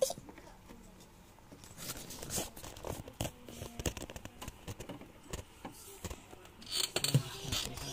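Plastic TV stand leg being handled and fitted into the base of a flat-screen TV: a string of small plastic clicks and knocks, with plastic-bag rustling about seven seconds in.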